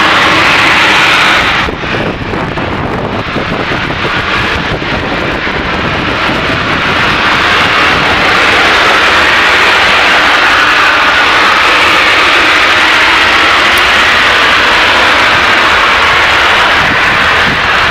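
Natural gas compressor station blowdown: high-pressure gas venting to the open air from a stack, a loud, steady rushing hiss like a jet engine. It dips briefly about two seconds in, then holds steady.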